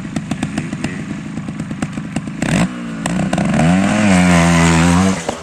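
Trial motorcycle's single-cylinder engine idling with an even putter, then, about two and a half seconds in, a knock and the engine revs up hard, holds high for a second or two and drops off near the end as the rider powers the bike at a rock step.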